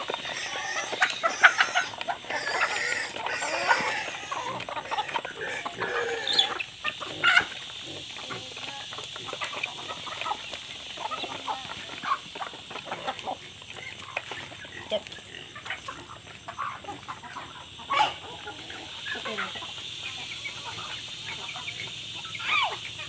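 A flock of chickens clucking as they gather for feed. The calls are dense and overlapping for the first six seconds or so, then thin out to scattered single calls with a few louder ones.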